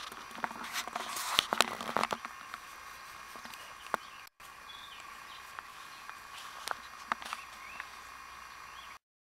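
Lapponian Herder puppy scuffling in grass with a small ball: rustling and knocks, sharpest and most frequent in the first two seconds, then lighter scattered clicks with a few faint short high chirps. The sound drops out briefly about four seconds in and cuts off just before the end.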